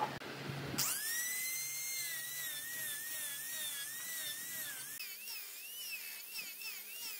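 A low hum, then about a second in a high-pitched power-tool whine starts, rising quickly as the motor spins up, and holds with a pitch that wavers up and down. Near the middle it changes abruptly to a slightly higher whine that wobbles rhythmically.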